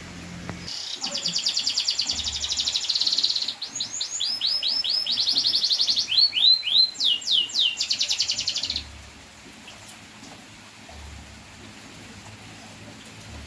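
Domestic canary singing, a young bird practising its song: a long phrase of fast, high trills broken by quick sweeping notes, stopping about nine seconds in.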